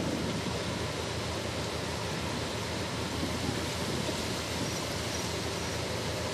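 Steady wind noise on the microphone and water sounds from a boat under way, with a low, even engine hum underneath.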